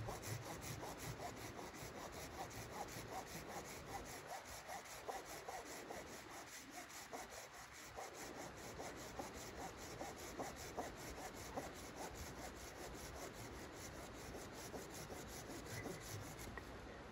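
Hand pruning saw cutting through a log, with steady back-and-forth rasping strokes several times a second.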